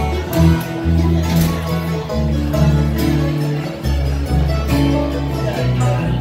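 Live bluegrass band playing an instrumental passage: strummed acoustic guitars, banjo and mandolin, with a harmonica.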